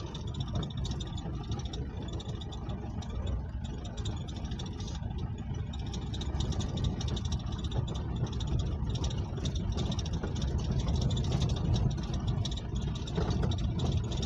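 Jeep's engine running steadily while driving, with a continuous low rumble of the moving vehicle.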